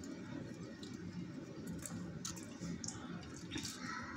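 Eating sounds of fried chicken being torn and chewed: a few scattered soft smacks and clicks over a low steady hum.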